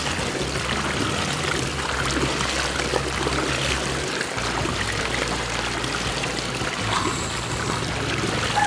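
Water rushing and churning steadily as a large whirlpool vortex drains down through a hole.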